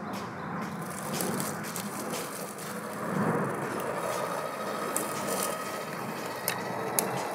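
Traxxas TRX-4 RC crawler climbing over rocks and dry pine needles: the brushless motor and gear train whirring under load while the tyres crunch and scrape through the needles and twigs. A few sharp clicks come in the second half.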